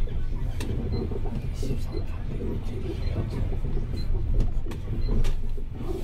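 Low, steady rumble of a vehicle driving through city streets, with a few faint clicks on top.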